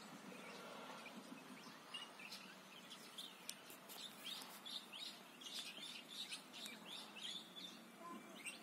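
Faint small birds chirping, many short irregular calls that come thickest through the middle, over a low steady hum.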